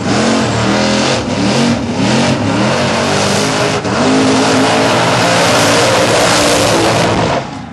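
Blown big-block V8 in a Holden revving hard through a burnout, its note rising and falling repeatedly over the roar of spinning, smoking tyres. The sound drops away sharply near the end.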